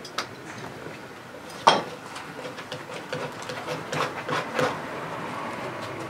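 Painting tools tapping and clicking against a canvas on an easel and the palette while thick oil paint is dabbed on. There is one sharp knock, the loudest sound, about one and a half seconds in, and a quick run of smaller taps around four seconds.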